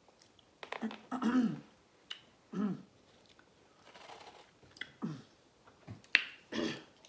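Close-miked eating sounds: scattered mouth clicks and wet chewing, broken by four short voiced throat sounds. A sharper click comes shortly before the end.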